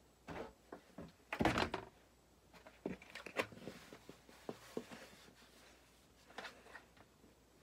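Handling noises from a plastic gallon jug of white vinegar being picked up and moved about on a workbench: scattered knocks and thumps, the loudest about a second and a half in.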